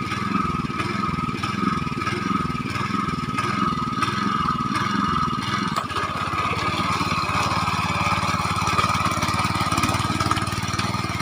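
Mini tractor engine running continuously with a steady high whine over it; about six seconds in, its note changes from wavering to steady.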